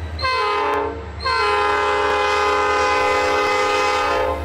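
Diesel locomotive air horn on a Norfolk Southern EMD SD40-2 at a grade crossing: a short blast, then about a second later a long one, a chord of several tones. Underneath runs the locomotive's steady low engine rumble. The short-then-long pattern is the close of the standard long-long-short-long crossing signal.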